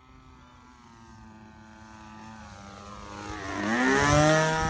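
The 20cc engine of a homemade RC profile plane, with its propeller, running at speed. It grows steadily louder as the plane approaches and passes low and close about four seconds in, and its pitch drops as it goes by.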